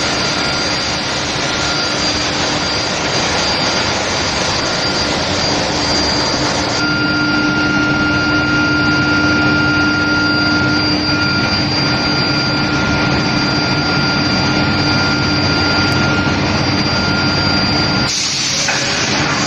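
Induction heating furnace line for metal bars running: a loud, steady industrial roar with several constant whining tones over it. The mix shifts abruptly about seven seconds in and again near the end.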